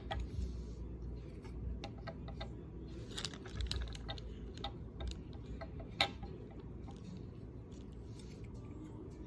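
Scattered light clicks and taps of small toys and packaging being handled, with one sharper click about six seconds in.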